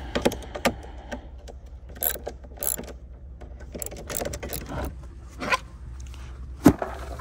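Ratchet wrench clicking in short irregular runs as the bolts holding a stack of plastic traction boards to a truck's rack are undone, with a few sharp knocks of metal and plastic as the boards are pulled free near the end.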